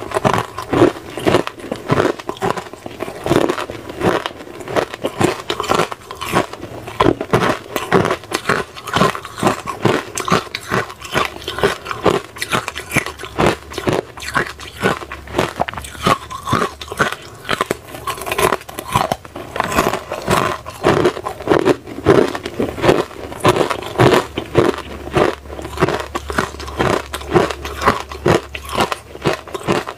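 Hard ice cubes with frozen pomegranate seeds being bitten and chewed: a steady run of sharp, crackling crunches, a couple or more each second.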